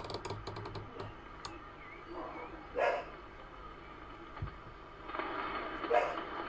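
Quick run of clicks from a CB radio's channel selector and switches being turned, then two short bark-like sounds. From about five seconds in, a steady hiss of receiver static.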